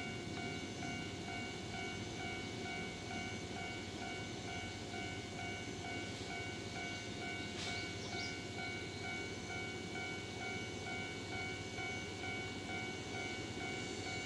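JNR Class EF65 electric locomotive hauling loaded rail-carrying flatcars at slow speed, a low steady rumble, while a railway level-crossing alarm rings a pulsing tone a little over twice a second. A brief sharp hiss cuts in about eight seconds in.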